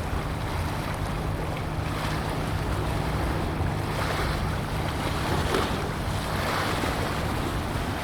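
Steady low hum of a ship's engine over an even rush of wind and water.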